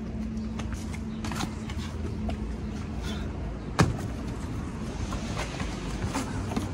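A parkour runner's footsteps and hand and shoe contacts as short scattered taps, with one loud thud of a landing on packed dirt a little under four seconds in. A steady low hum runs underneath for the first few seconds.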